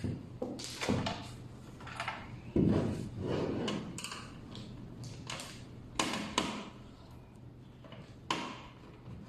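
Hands working on an NVR recorder's casing during a hard drive install: a series of clicks and knocks, with a longer scraping slide a little under three seconds in and sharp clicks near the end.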